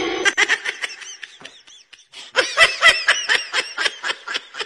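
High-pitched, rapid giggling, about five short laughs a second, with a brief pause about two seconds in before the giggling picks up again louder.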